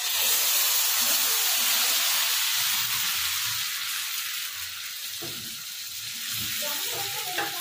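Rice-flour batter sizzling on a hot non-stick pan as it is poured and spread. The hiss starts suddenly and eases off slowly over the next few seconds.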